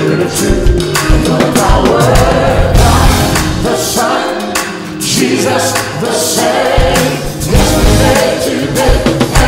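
Gospel music with voices singing over a band. The bass and drums drop out for about three seconds in the middle, then come back in.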